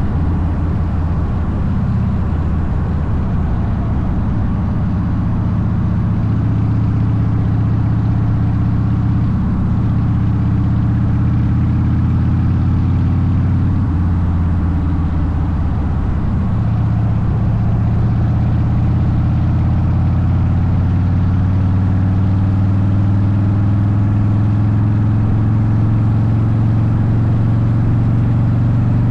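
Harley-Davidson Softail Deuce's V-twin engine running through Vance & Hines exhaust pipes while the motorcycle cruises at a steady speed. The engine note shifts briefly about halfway through, then settles again.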